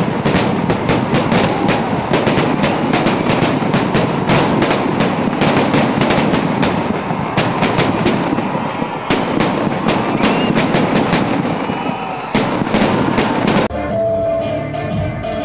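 Firecrackers packed in a burning Ravana effigy bursting in a dense, uneven string of cracks and bangs, many a second, over a continuous crackle. Near the end the crackle cuts off and music takes over.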